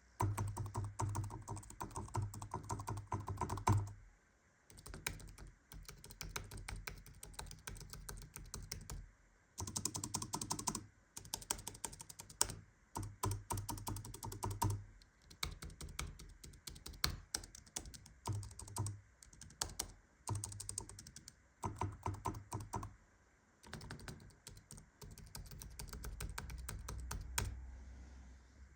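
Fast typing on a wireless Bluetooth keyboard: quick runs of key clicks in bursts of a few seconds, broken by short pauses.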